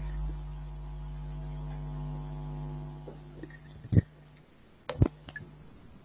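Steady electrical mains hum picked up by a wired earphone microphone, which drops away about three seconds in. A few sharp clicks follow near the end: one at about four seconds, then two close together a second later.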